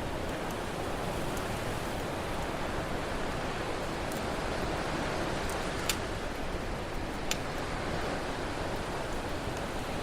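Steady wash of ocean surf under a crackling campfire, with scattered faint snaps and two sharper pops from the fire, about six and seven seconds in.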